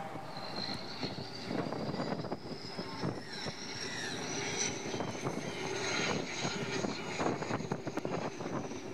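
A high engine whine that glides slowly up in pitch and then back down, over wind gusting on the microphone.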